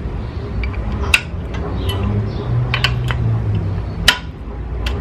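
Sharp metallic clicks of hand tools, a socket extension and a torque angle gauge being fitted and set on a cylinder head bolt. There are a handful of clicks, the loudest about a second in and about four seconds in, over a low steady hum.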